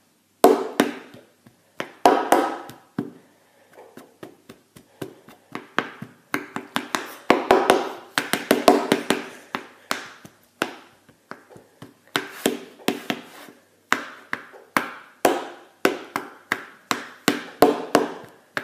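Knife point repeatedly stabbing down onto a tabletop between the fingers of a spread hand (the five finger fillet knife game). Sharp taps come scattered at first, then settle into a fairly even run of about two to three a second.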